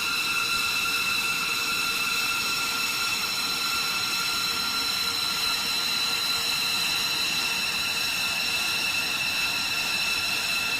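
Jet aircraft engines running steadily, a high turbine whine with several even tones over a rushing noise.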